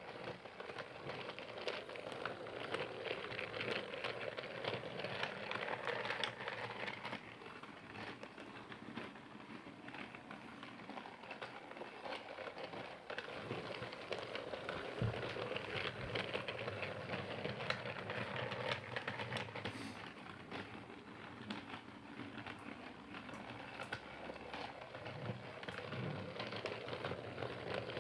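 Motorized Percy toy train running on its track, a continuous small plastic clatter and whir of the motor and wheels on the rails. It grows louder and fainter every several seconds as it moves closer and away.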